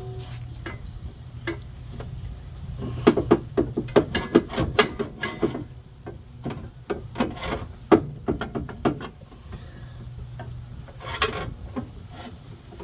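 A steel lower control arm being worked into place in a car's front suspension: irregular clusters of metal knocks, clanks and scraping as it is pushed and levered against the surrounding parts.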